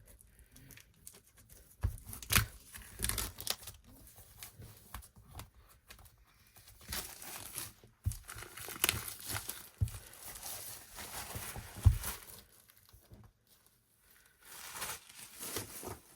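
Album packaging being torn and crinkled open by hand, with rustling and a few sharp knocks as the album is handled.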